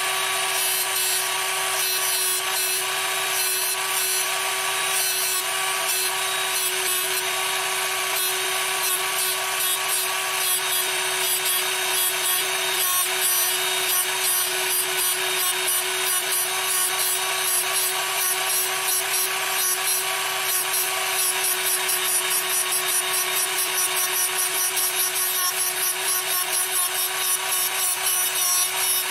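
Proxxon rotary tool running steadily, its thin abrasive cutoff wheel grinding a slot into a hardened steel die: a constant motor whine over a high grinding hiss that grows more pulsing in the last several seconds.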